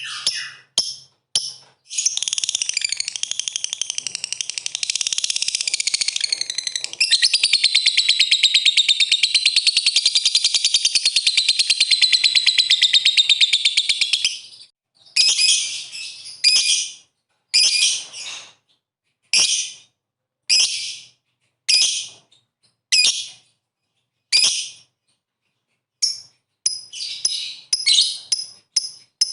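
A lovebird calling with its 'ngekek' song: a long, very rapid, high-pitched chattering trill lasting about twelve seconds. It is followed by a string of short sharp chirps about once a second, then a brief pause and a quicker run of chirps near the end.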